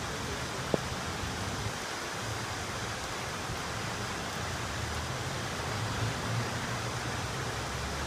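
Steady rushing water noise from flooding, with a single short click about three-quarters of a second in.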